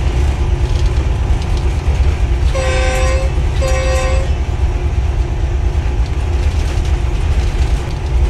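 Diesel locomotive running under way, heard from inside the cab as a steady loud low rumble, with two short blasts of the train horn about three and four seconds in.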